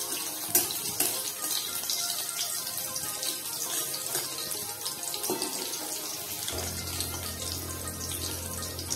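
Crushed garlic, green chillies, a dried red chilli and nigella seeds sizzling and crackling in hot mustard oil in a kadai, with a metal spatula scraping and knocking against the pan as they are stirred.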